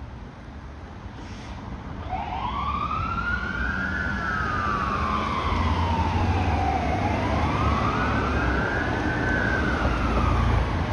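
Fire engine siren starting about two seconds in with a slow wail that rises and falls twice, over the low rumble of the truck's engine, both growing louder as the engine approaches.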